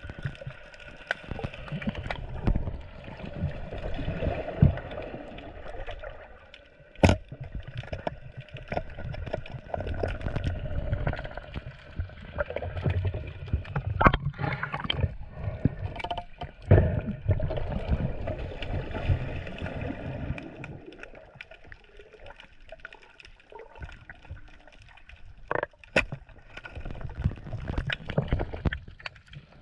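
Sea water sloshing and gurgling, in uneven swells, with a few sharp knocks scattered through it.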